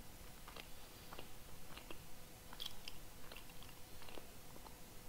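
Close-miked chewing of a dry chestnut pastry: soft, irregular mouth clicks and small crunches.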